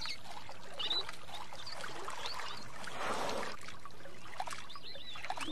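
River water trickling and lapping, the wash swelling briefly about three seconds in, with a few short high bird chirps now and then.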